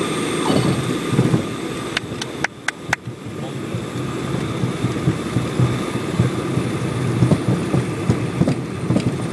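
Light aircraft landing, heard from inside the cockpit: steady engine and cabin noise at low power, a few sharp clicks about two to three seconds in, then a rough rumble with irregular thumps as the wheels roll along the runway.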